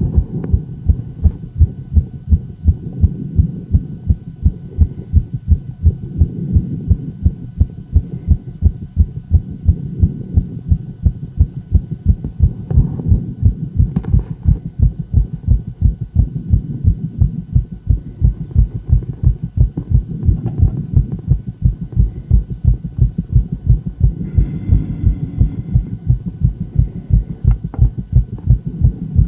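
A woman's heart beating fast: a rapid, regular train of low heart sounds, beat after beat without a break.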